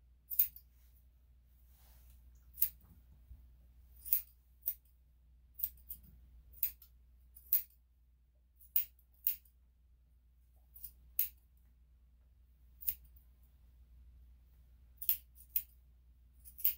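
Grooming scissors snipping through a dog's coat: about sixteen short, sharp snips, irregularly spaced roughly a second apart.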